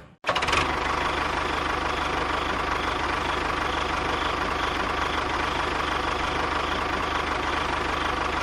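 A small motor running steadily at an even speed, a dense mechanical whir with a constant high whine.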